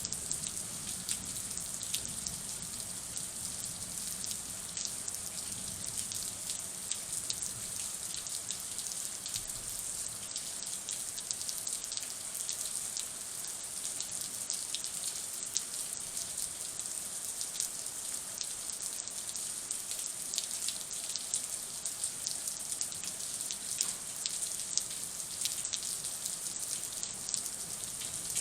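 Thunderstorm rain falling steadily, with many separate sharp drop hits.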